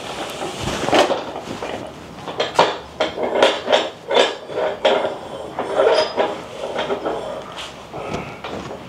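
Hard objects being moved and handled, clattering and knocking in a string of irregular knocks, denser in the middle.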